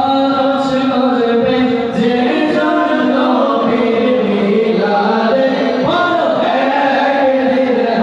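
Male voices singing a naat, Islamic devotional verse sung without instruments, in long held and gliding notes.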